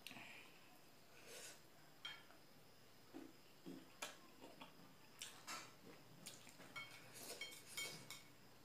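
Faint, scattered clicks of chopsticks tapping against a plate while dumplings are picked up and eaten, coming more often in the second half.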